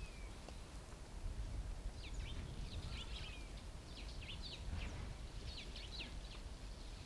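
Birds calling in quick, high chirps that slide downward, coming in clusters through the middle of the stretch, over a low rumble of wind on the microphone.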